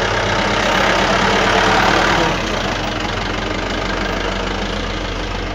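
Old Land Rover's engine idling with a steady low throb, with a louder rushing noise over it that eases off about two seconds in.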